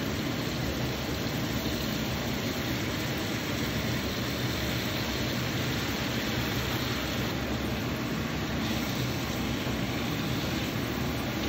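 Steady rushing noise from the stovetop, where chicken pieces are frying and simmering in their juices in a wok.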